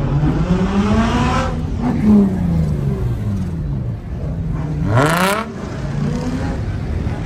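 A car engine revving: a long rise over the first second and a half that settles back down, then a short, sharp rev about five seconds in.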